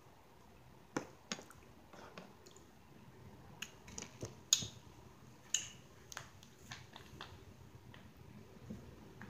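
Close-miked eating sounds: a person chewing, with about a dozen scattered wet mouth clicks and smacks, the sharpest about halfway through.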